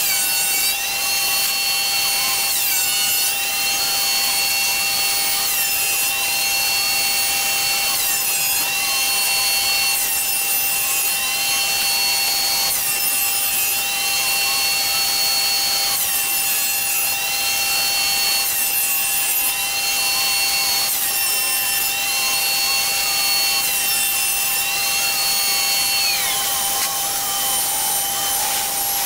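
CNC Shark router cutting into a wooden door panel: the router spindle runs with a steady whine over the hiss of the bit in the wood, while a higher whine dips and rises in pitch every couple of seconds as the head moves along the cut. Near the end the higher whine stops.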